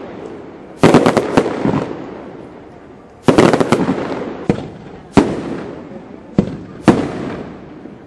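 Fireworks going off: sharp bangs in clusters of two or three, about every two seconds, each followed by a crackling tail that fades away.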